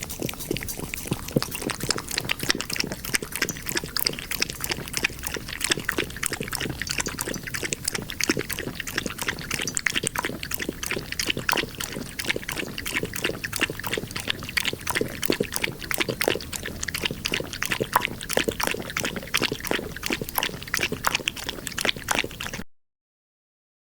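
Kitten lapping milk with its tongue: a quick, uneven run of small clicks, several a second, that stops abruptly near the end.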